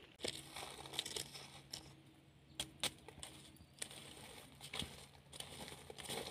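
A wooden stick raking and poking through wood ash and charcoal to bury foil-wrapped food packets, giving irregular scrapes, crunches and small clicks of embers.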